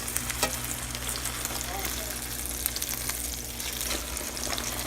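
Egg frying in hot oil in a pan: a steady sizzle with many small crackling pops, over a steady low hum.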